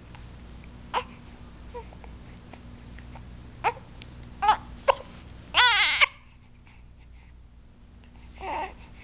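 Three-month-old baby cooing in short bursts, then a loud, high, wavering squeal about five and a half seconds in, and one softer coo near the end.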